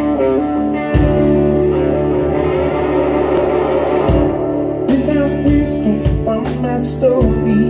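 Live rock band playing: electric guitars, acoustic guitar, bass guitar and drum kit, with sustained guitar chords and the bass drum and cymbals coming in about a second in and then striking on the beat.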